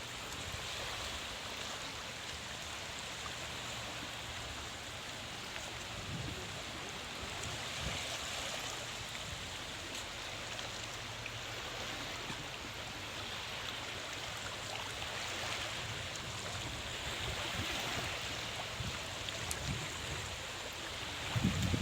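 Sea waves washing on the shore: a steady rushing noise with gentle swells. A louder low buffeting comes in near the end.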